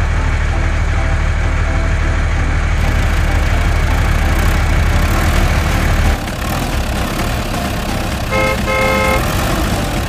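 Engine sound of a heavy vehicle running with a steady low drone that drops off about six seconds in, then two short horn toots, the second a little longer.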